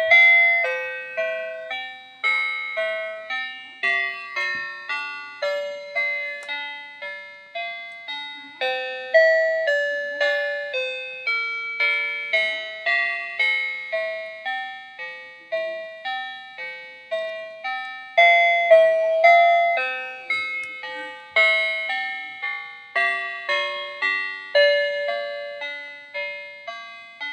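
Talking calculator-alarm clock's built-in music box playing an electronic tune in its third alarm tone: a steady melody of single chime-like notes, each fading quickly, over a softer lower line.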